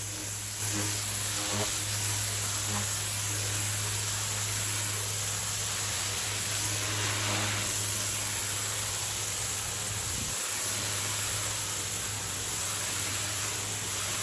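Pressure washer running with its wand spraying water: a steady hiss over a low, steady hum.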